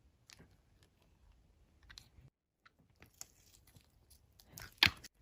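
Slime being handled and pressed: scattered small clicks and crackles, faint at first, getting louder and closer together near the end.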